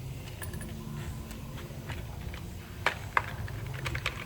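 Light metallic clicks and taps of small tools and parts being handled during spark plug work, with two sharper clicks about three seconds in, over a steady low hum.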